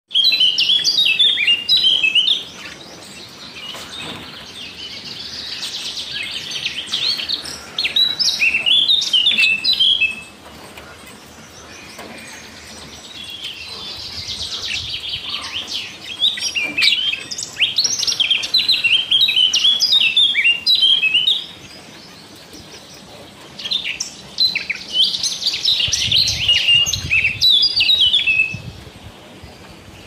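Caged zebra finches and budgerigars chirping together: waves of many quick, high chirps, with quieter stretches between the waves.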